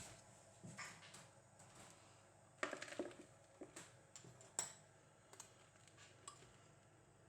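Quiet clinks and knocks of kitchen utensils and dishes being handled. There is a short cluster of knocks about two and a half seconds in, a single sharp clink a couple of seconds later and a few fainter taps in between.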